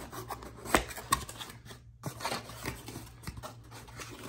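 Small cardboard shipping box being opened: its taped flaps slit and pulled back by hand, a run of cardboard scrapes, crackles and rustles, with the sharpest crack about three-quarters of a second in.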